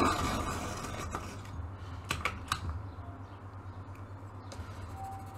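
A hand-crank pencil sharpener's grinding on a coloured pencil trails off at the very start. Then come a few sharp clicks and taps, one about a second in and two just after two seconds, as the pencil is drawn out of the sharpener and handled.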